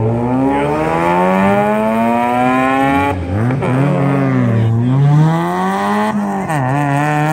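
High-performance car engine under hard acceleration. The revs climb steadily for about three seconds, drop sharply at a shift or lift, then fall and climb again, with another quick dip in pitch near the end.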